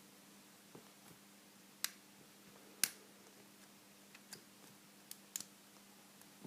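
Metal lock pick and tension wrench clicking in the keyway of a vintage Corbin pin tumbler padlock, a handful of separate sharp clicks, the loudest about three seconds in. The tension wrench keeps slipping in the tight, warded keyway.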